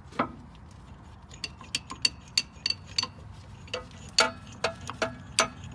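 A hand-threaded brake caliper piston compression tool being unscrewed and handled against the caliper: a run of irregular, sharp metallic clinks with a short ringing tone, the loudest a little past four seconds in.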